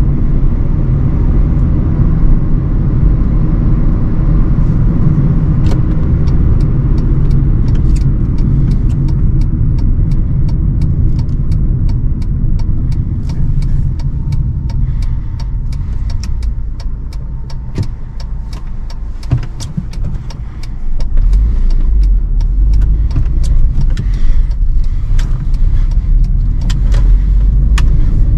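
Hyundai i20's 1.25-litre petrol engine and tyre/road rumble heard from inside the cabin while driving, with many scattered sharp clicks and ticks. The low rumble eases a little, then rises again about 21 seconds in.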